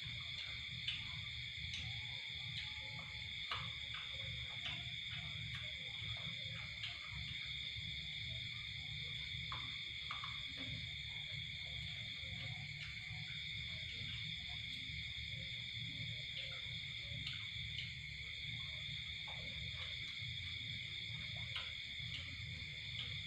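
Steady high-pitched chorus of night insects, with a low hum beneath and a few faint clicks.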